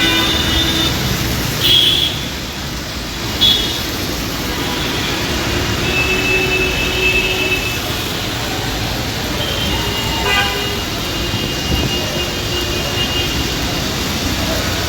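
City street traffic in the rain: a steady wash of rain and traffic noise, with vehicle horns honking several times, two short loud toots about two and three and a half seconds in and another near ten seconds.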